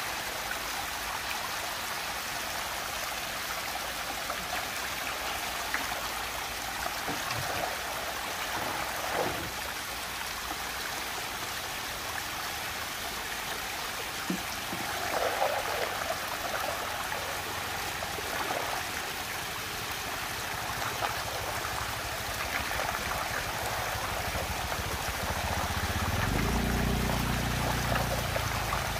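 Water swirling and rushing steadily down into a whirlpool vortex, with a few small splashes along the way. A low hum comes in near the end.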